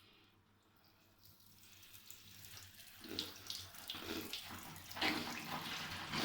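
Water running or bubbling, starting faint about a second in and growing louder, with further surges around three and five seconds in.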